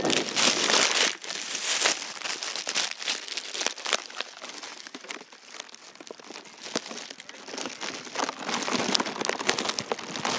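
Irregular crinkling and rustling with many small crackles: a yellow covering is rubbing against the camera and its microphone as the camera is handled. It is loudest at the start and again near the end.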